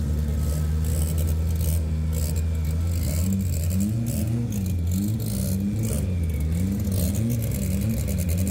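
Drag-racing car's engine running at a steady idle; from about three seconds in its pitch swings up and down over and over as it is revved.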